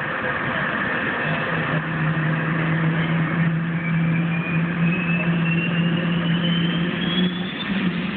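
Boeing 747 Shuttle Carrier Aircraft's jet engines during engine start: a steady loud jet noise, a low hum joining about a second in, and a high whine rising steadily in pitch from about four seconds in as an engine spools up.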